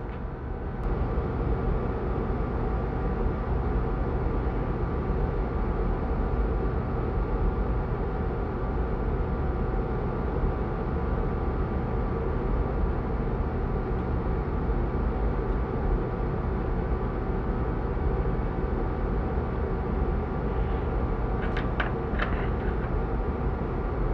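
Steady mechanical drone: a low rumble with a hum of several steady tones, like a motor or fan running, setting in about a second in. A few light clicks come near the end.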